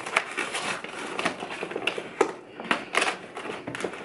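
Irregular clicks, taps and scraping of hands and a tool working at zip ties inside a cardboard box, with cardboard and packaging rustling.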